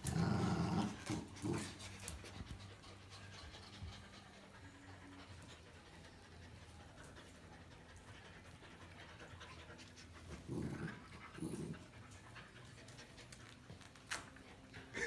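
Border collies panting hard, worn out from a tug-of-war over a towel. The panting is loudest in the first second or so, with two short louder breaths about ten and a half and eleven and a half seconds in.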